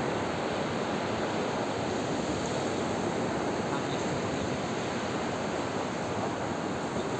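Steady rush of sea surf washing onto the shore, an even hiss without distinct breaks.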